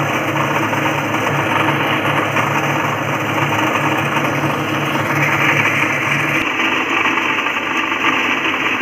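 Small electric rice milling machine running steadily as rice grains pass through it. The low hum changes abruptly about six and a half seconds in.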